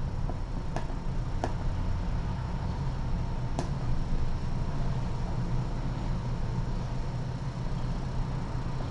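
Calico cat purring as her chin and neck are scratched: a steady low rumble. A few faint clicks come in the first few seconds.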